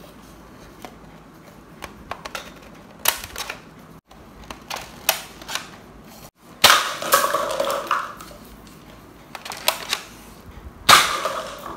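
Toy AUG rifle shooting at a stack of paper cups: a scatter of sharp clicks and light shots, then two louder bursts about seven and eleven seconds in with the clatter of cups being knocked down.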